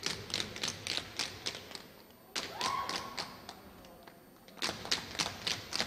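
Tap shoes striking a stage floor in quick rhythmic runs of sharp taps, about four or five a second, breaking off briefly a little after two seconds in. A short held note sounds around three seconds in.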